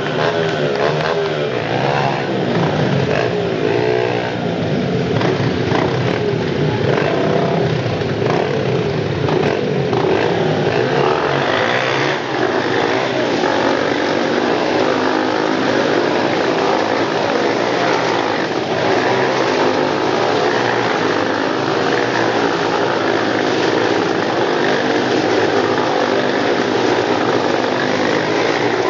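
Several Honda CRF four-stroke dirt-bike engines revving hard together as the riders circle inside a steel mesh globe of death. Their overlapping engine notes rise and fall, then merge into a dense, steady drone after about ten seconds.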